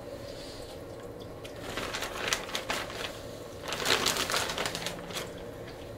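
A clear plastic bag crinkling and rustling as a shirt is pulled out of it, in two bursts of handling noise, with a single click near the end.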